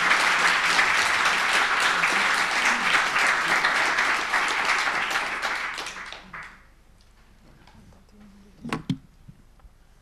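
Audience applauding, which dies away about six and a half seconds in. A couple of brief knocks follow near the end.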